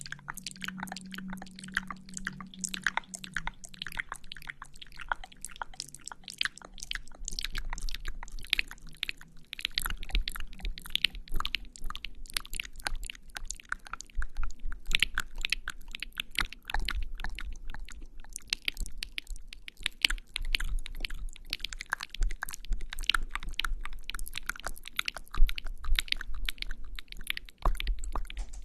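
Close-miked ASMR sounds of lipstick being applied to the lips: a dense, continuous run of small sticky clicks and crackles, with soft low thumps of handling from a few seconds in.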